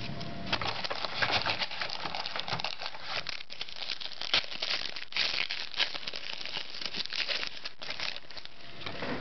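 Foil trading-card pack wrapper crinkling and rustling as it is handled and opened, with small clicks of cards sliding against each other.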